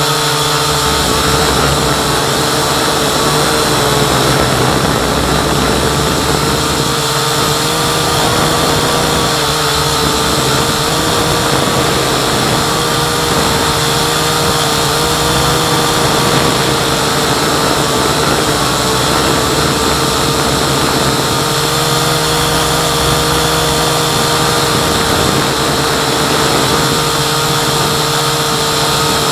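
Syma X8C quadcopter's electric motors and propellers heard from its onboard camera in flight: a loud, steady whine, its pitch wavering slightly as the throttle shifts.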